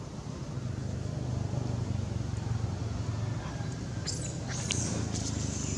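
A steady low rumble, joined about two-thirds of the way in by several short, high-pitched squeaks or chirps, some sweeping upward.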